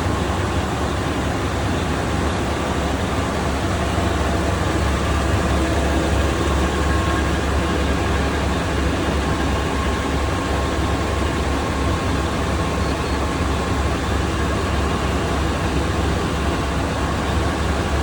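Ship's engine room machinery running steadily: a loud, even drone with a deep low hum under a wide hiss.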